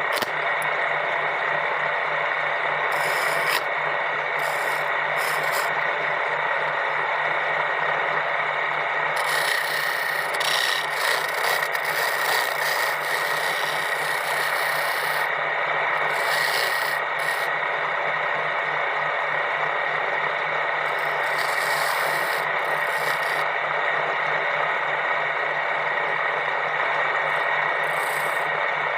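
Steady abrasive rubbing on wood, like a rasp or sander working a board, over a constant machine hum. Scratchier high-pitched passages come and go, strongest in the middle stretch.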